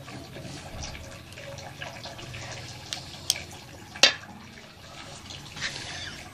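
A few sharp metallic clicks as a kitchen knife is set down in a steel bowl of chopped greens. The loudest click comes about four seconds in, over a soft background hiss and hum.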